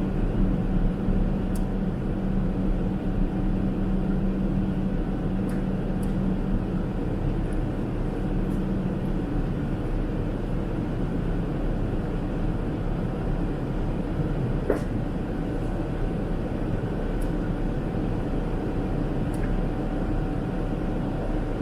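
Steady cabin noise inside a Boeing 777-300ER in flight: the drone of its GE90 engines and rushing airflow. A low hum fades out about a third of the way through, and a few faint clicks sound over it.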